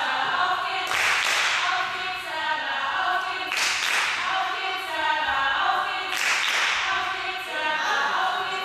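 Spectators and teammates shouting and chanting together, several voices at once, in swells about every two and a half seconds with bursts of clapping or cheering.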